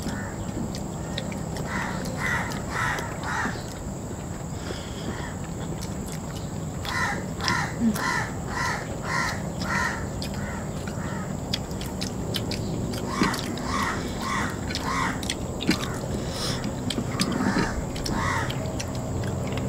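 A bird calling in quick runs of four to six notes, about three a second, coming back several times over a steady low hum.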